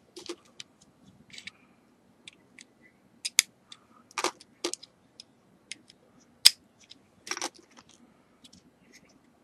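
Hard plastic Lego pieces clicking and snapping as wheel assemblies are pressed onto a small Lego fire truck: a series of irregular sharp clicks, the loudest about a third and two-thirds of the way in.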